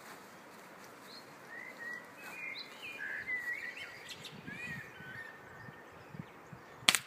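Birds chirping over quiet outdoor background, then near the end one sharp crack, a .22 air rifle firing.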